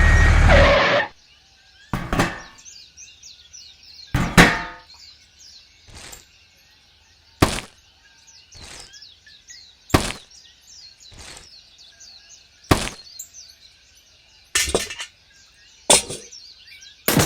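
A loud rushing noise cuts off abruptly under a second in. After that comes a stretch of light bird chirping with about a dozen sharp clicks and knocks of hard objects, irregularly spaced roughly every second.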